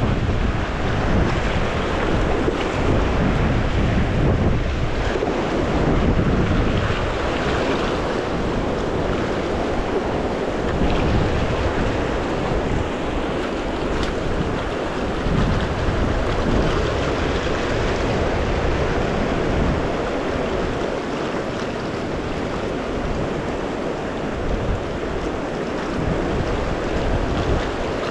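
River water rushing steadily over a shallow rapid, with wind buffeting the microphone at times.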